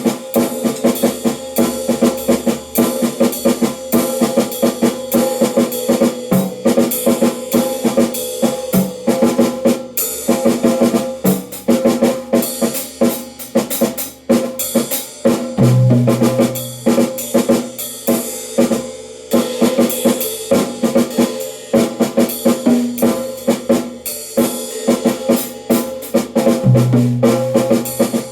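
Drum kit played in a continuous, busy pattern of bass drum, snare and cymbal hits.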